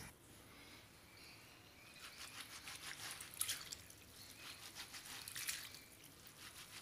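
Hands swishing and rubbing soaked split urad dal in a pot of water to loosen the husks: faint, irregular splashes and squelches, starting about two seconds in.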